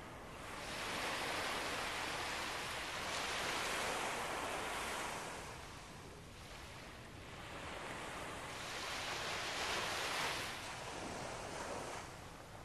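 Small ocean waves breaking and washing up the sand, the rush of surf swelling twice: once about a second in and again about eight seconds in.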